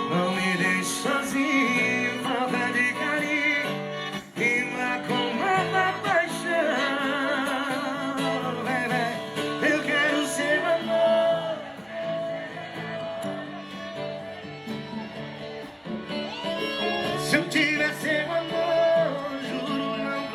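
Acoustic cover of a sertanejo song: strummed acoustic guitar with a voice singing long, wavering held notes.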